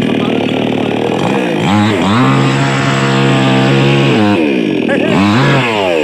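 Chainsaw engine idling, then revved up to full throttle about a second and a half in and held for about two seconds before dropping back, with a second short rev near the end.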